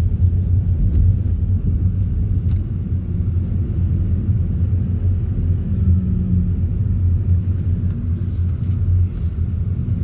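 Car driving at moderate speed, heard from inside the cabin: a steady low rumble of engine and road noise.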